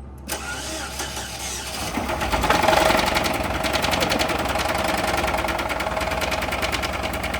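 Chevy HHR's four-cylinder engine starting up, revving briefly and settling into a steady idle with a fast, even knock from a bad connecting-rod bearing (rod knock).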